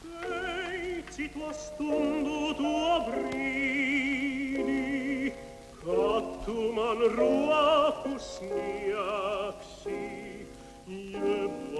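A classical singer with wide vibrato, in operatic style, sings a song in several phrases over piano accompaniment.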